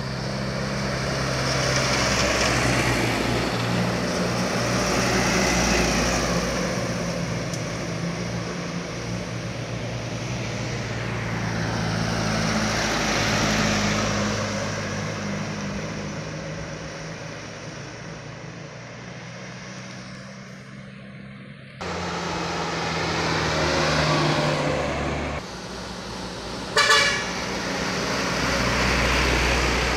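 Diesel engines of loaded sugarcane trucks passing one after another on a downhill, driven hard, each swelling and fading as it goes by. A short, loud horn blast sounds near the end.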